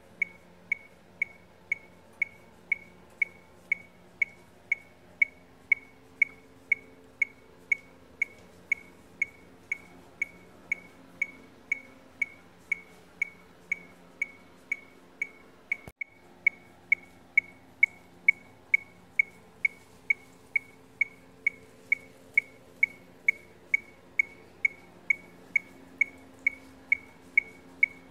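Metronome clicking steadily at about two short, high ticks a second, keeping the tempo for a marching-band visual routine.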